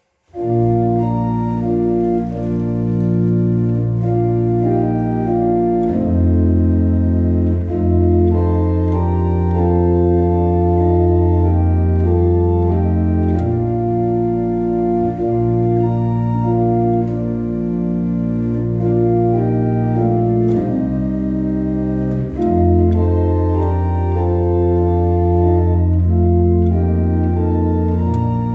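Church pipe organ playing a hymn in slow, sustained chords over long held pedal bass notes, starting a moment in.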